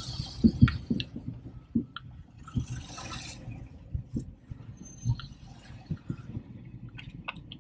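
Cabin noise of a Hyundai i10 hatchback on a rough, stony dirt road: irregular knocks and thumps of the body and suspension jolting over the bumps, with scattered small rattles.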